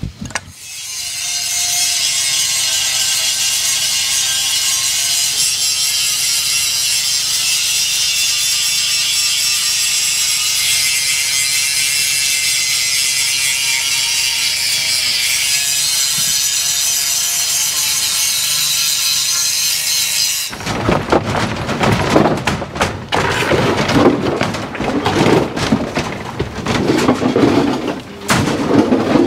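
Angle grinder cutting through a steel pipe railing: a loud, steady high-pitched grinding for about 20 seconds. It then stops abruptly, and irregular knocking and clattering follow.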